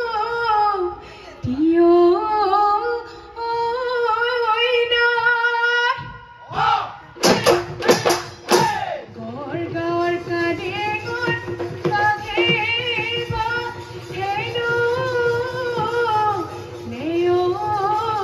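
Female Bihu singer singing an ornamented, wavering melody into a microphone, unaccompanied at first. A short burst of loud high calls comes about seven seconds in, then dhol drums start up and keep a steady beat under her singing.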